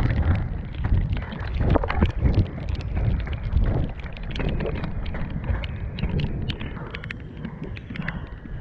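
Wind buffeting the microphone over the rumble of pneumatic-tired off-road inline skates rolling on a muddy dirt trail, with many short crunches and clicks from grit under the wheels.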